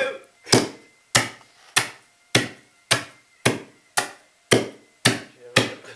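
About ten hard blows in a steady rhythm, a little under two a second, pounding pasta on a kitchen surface to break it into small shapes.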